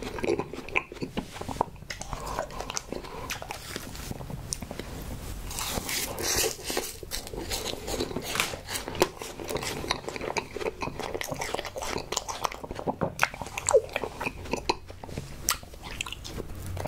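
A person chewing and biting into strawberry desserts close to the microphone: continuous mouth sounds with many short clicks and pops.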